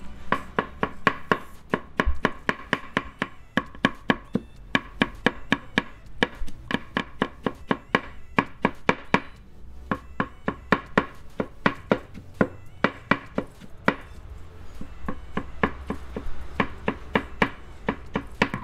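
A cleaver chopping vegetables on a thick round wooden chopping block. The knocks come in quick regular runs of about four a second, with short pauses between runs.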